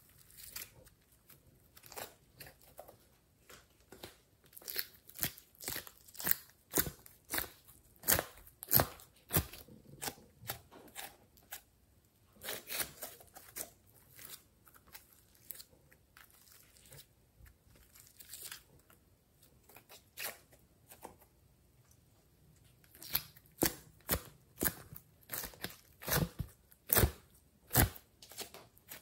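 Glossy slime being stretched, twisted and squeezed by hand, giving sharp clicks and pops in quick flurries, with a quieter stretch in the middle.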